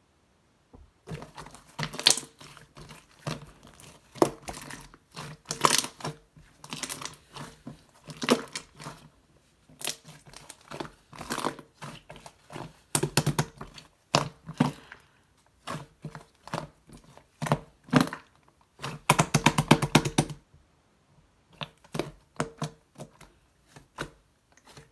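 Hands working a soft, sticky craft material, giving irregular bursts of fine crackling and crinkling clicks with short pauses between them and a longer, denser burst near the end.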